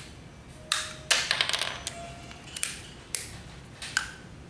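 Sharp clicks and small knocks of a PVC one-touch air-hose quick coupler being handled: a quick rattling run of clicks about a second in, then single clicks every second or so.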